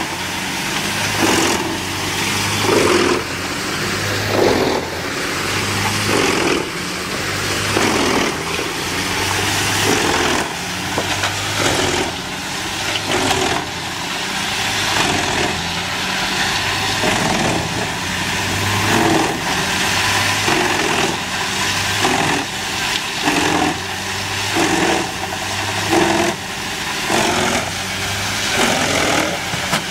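Wood chipper running steadily, with short surges of noise every second or two as material goes through it.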